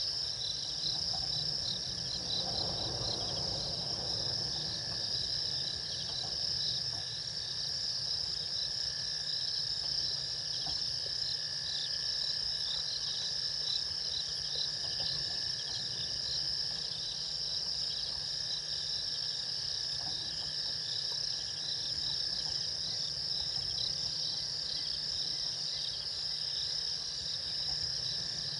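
Night chorus of crickets and other insects, a dense high continuous trill with a steady lower tone beneath it.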